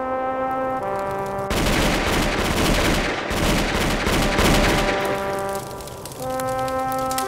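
Rifle volley of a police funeral gun salute: a dense crackle of many shots starting about a second and a half in and lasting about three and a half seconds, over slow background music of held notes that carries on after the firing.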